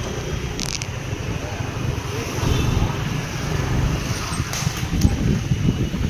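Street traffic, with cars and motorcycles passing, under a low, uneven rumble.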